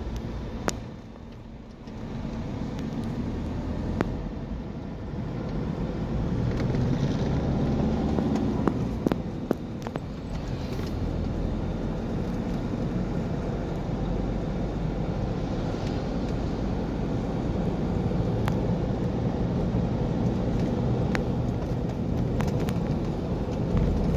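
Road noise inside a moving car's cabin: a steady low rumble of engine and tyres, briefly quieter about a second in, with a few small clicks.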